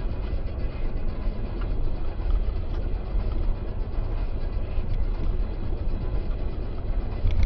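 Steady low rumble of road and engine noise from a car driving, picked up inside the cabin by a dashcam microphone.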